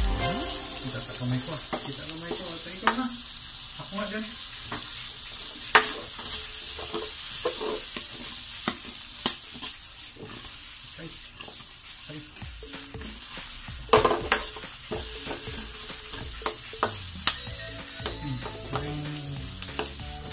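Vegetables sizzling in a steel wok as they are stir-fried, with a metal ladle clinking and scraping against the pan. A run of louder clanks comes about two-thirds of the way through.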